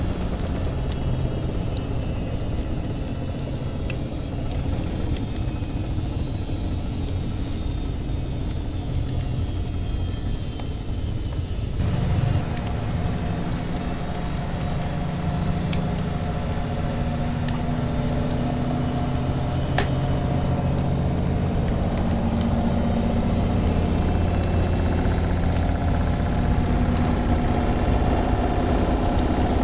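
Washing machine running with a steady motor hum. About twelve seconds in the hum changes and grows fuller, and it builds slightly toward the end. Occasional small pops of a wood fire crackling sit over it.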